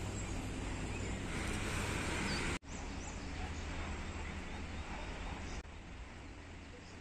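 Steady outdoor roadside background noise, a low rumble with hiss, with a few faint chirps. It cuts out sharply for an instant about two and a half seconds in and drops quieter about five and a half seconds in.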